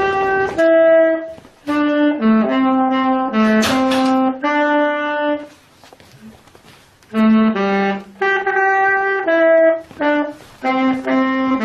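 Saxophone played by a beginner practising: a string of separate held notes, a break of about a second and a half midway, then another run of notes.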